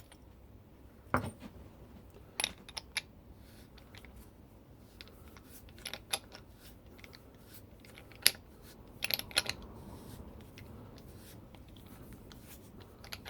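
Scattered clicks, clinks and small knocks of a threaded plumbing fitting, a socket and a plastic water-container lid being handled and fitted together by hand. There is a duller knock about a second in and the sharpest click around eight seconds in.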